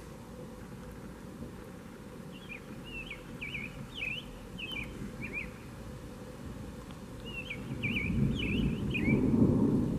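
A songbird sings two runs of short, slurred up-and-down chirps. Over the last couple of seconds low thunder rumbles up and becomes the loudest sound, then begins to fade.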